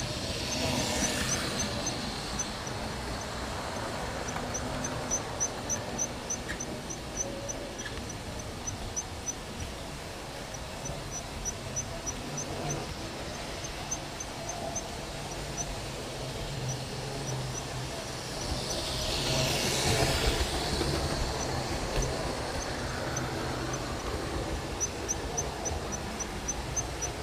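Model railway tank locomotive running on its track, heard from a wagon it is pulling: a steady low motor hum and wheel-on-rail rumble with a fast, even high ticking, about four or five ticks a second. A louder rushing swell rises and falls about twenty seconds in.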